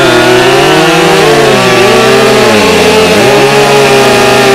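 Several Husqvarna two-stroke chainsaws (445E, 550XP Mark II and 572XP) running at full throttle while cutting through logs together. Their engine notes dip and recover under load, one sagging deeply about three seconds in before climbing back.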